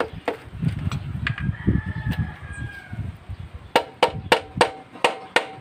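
Rubber mallet knocking on a Suzuki Smash 115's aluminium crankcase to split the case halves: low handling thumps at first, then steady sharp knocks about three a second, each with a short metallic ring, from nearly four seconds in. A rooster crows once in the middle.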